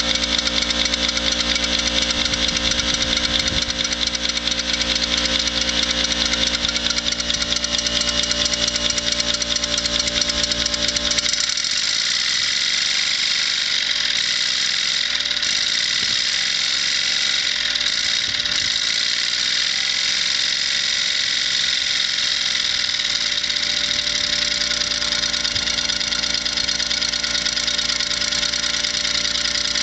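Hand-made 1-inch-scale live steam traction engine running on compressed air, its exhaust beating steadily. About eleven seconds in, the low rumble under the beats drops away suddenly while the engine keeps running.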